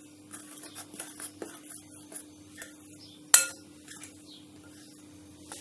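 A metal spoon stirring dry flour and cocoa powder in a bowl, with scattered light clinks and scrapes against the bowl and one sharper clink about three and a half seconds in.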